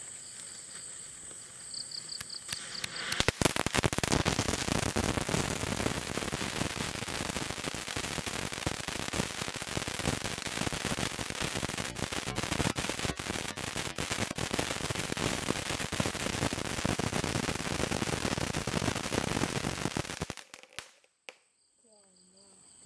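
Balaji brand 'Crackling Coconut' firework fountain burning: a dense, continuous crackle of many small pops. It starts about three seconds in and cuts off suddenly a couple of seconds before the end.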